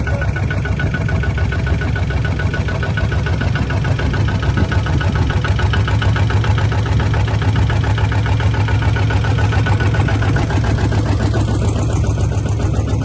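A small bulldozer's engine running steadily at an even pace, with a strong low hum.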